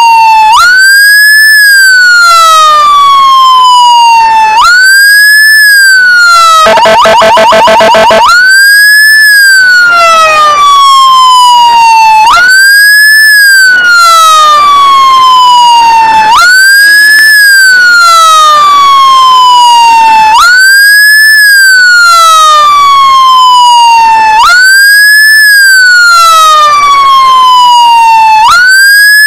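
Electronic emergency siren on wail: each cycle rises quickly and then falls slowly, repeating about every four seconds. About seven seconds in, a harsh, rapidly pulsing electronic horn blast cuts in for about a second and a half, then the wail resumes.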